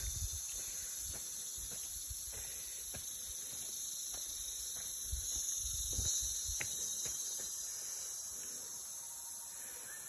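Steady, high-pitched insect chorus of tropical rainforest, with a hiker's footsteps on a leaf-littered dirt trail and an occasional twig snap; the steps are heaviest near the start and again about five to six seconds in.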